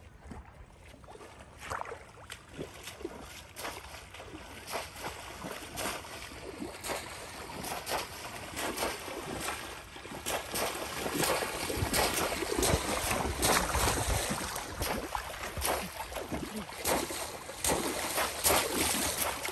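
Water splashing in a shallow pond as people wade and slam bamboo polo fish traps down into it: many irregular sharp splashes and sloshes, getting louder over the first dozen seconds.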